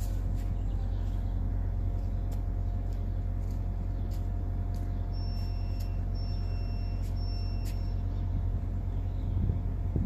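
Steady low rumble with a faint hum above it, dropping away sharply right at the very end.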